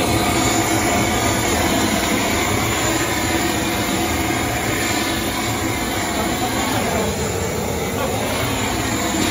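Large hose-fed handheld gas torch burning at full flame, a steady loud rush of flame, as it sears fish on a grill.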